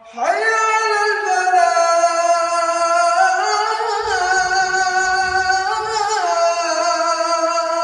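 Quran recitation: a single voice holding long, ornamented melodic notes that waver and slide in pitch. A new phrase begins right after a brief pause at the start.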